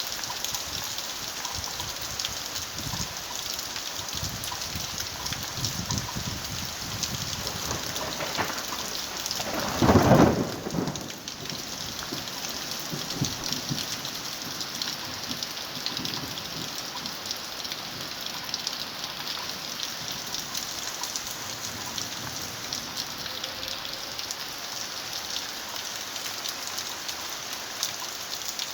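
Steady rain falling and pattering on surfaces, with one loud rumbling clap of thunder that swells and dies away about ten seconds in.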